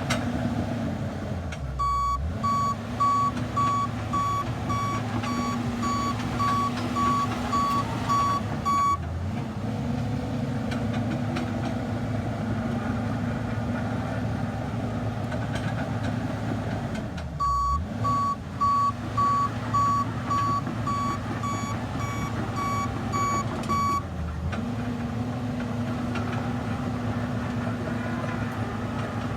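Bulldozer diesel engine running under load, with its back-up alarm beeping about twice a second in two spells while it reverses. The engine dips in pitch each time the dozer changes direction.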